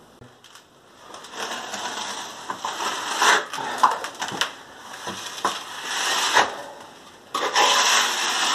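Dark-tinted antique mortar being applied to a wall: a rough, scraping hiss that comes and goes in swells, with a sudden step up in loudness near the end.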